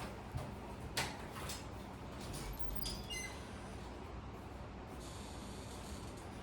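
Faint handling sounds of small BB gun parts: a sharp click about a second in, a few lighter ticks, and a brief high squeak around three seconds in.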